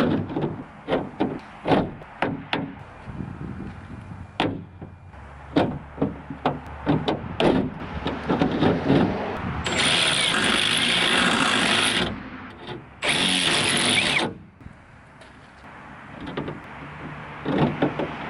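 Knocks and clicks of metal parts being handled, then a power drill fitted with a step bit runs in two bursts, about two seconds and then a second and a half, widening a stud hole in the car's trunk lid.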